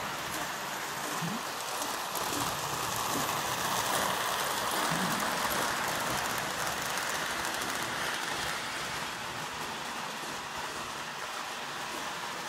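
Marx 333 toy steam locomotive and its freight cars running on toy train track: a steady rolling rumble of metal wheels on rail with a faint motor whine, swelling as the train passes close by in the middle and easing off again.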